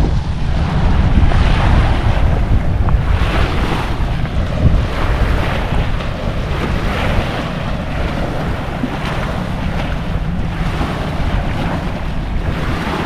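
Choppy bay waves washing up and breaking on a sloping concrete revetment, surging in one after another at uneven intervals. Strong wind buffets the microphone with a steady low rumble underneath.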